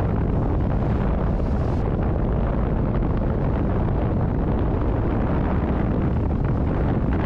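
Strong wind buffeting the microphone in a steady low rumble, over the rush of a sailboat's hull through choppy water.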